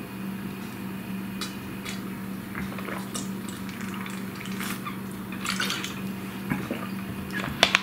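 A man drinking water from a large plastic bottle, with soft gulps and liquid sounds. A few sharper clicks from the bottle come near the end as he lowers it.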